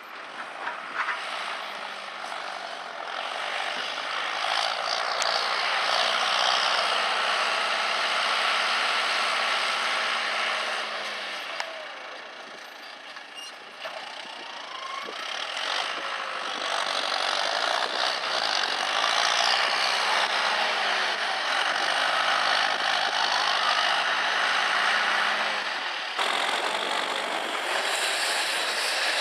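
John Deere tractor's diesel engine running and revving as it drives and works its front loader, rising and falling in loudness with a brief fade about halfway through.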